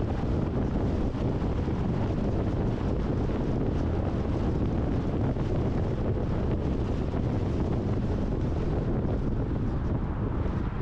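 Steady road and wind noise from a car driving at highway speed, with wind buffeting the microphone; an even rush that holds level throughout.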